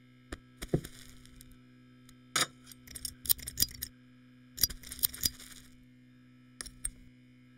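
Cartoon sewing sound effects: scissors snipping and small clicks of needle and thread, coming in several quick clusters over a faint steady hum.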